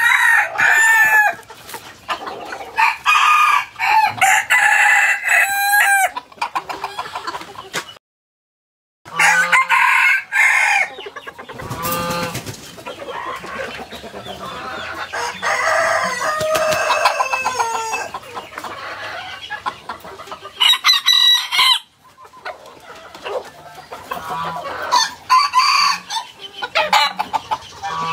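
Two young roosters crowing again and again, their calls sometimes overlapping, with clucking between crows. The sound cuts out completely for about a second about eight seconds in.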